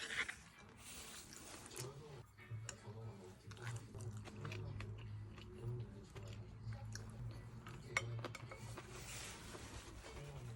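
A person chewing food at close range, with scattered small clicks of cutlery or dishes and one sharper click about eight seconds in.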